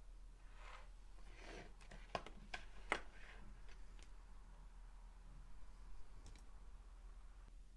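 Faint clicks and taps of plastic LEGO Technic parts being handled, a quick cluster of sharp clicks about two to three seconds in and a couple of lighter ones later.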